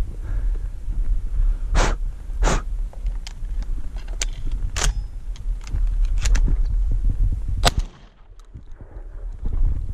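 Footsteps crunching over loose rock and gravel, with brush scraping and a steady low rumble underneath. The sounds are irregular sharp crunches and clicks, and they drop off briefly about eight seconds in before picking up again.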